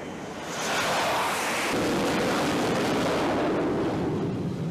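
Aircraft engine noise on the flight deck: a loud rushing sound that swells in about half a second in, settles lower partway through, and fades near the end.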